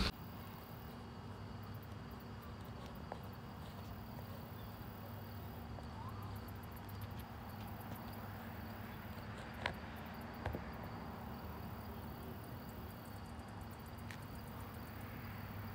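Faint insects calling in repeated bouts of rapid, very high-pitched ticking, over a steady low hum, with a couple of small clicks about ten seconds in.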